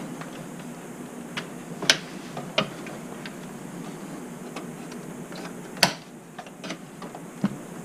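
Scattered clicks and knocks of hands working the release tabs and metal drive cage inside an Alienware Aurora R6 desktop case, with two sharper snaps, one about two seconds in and another a little past the middle.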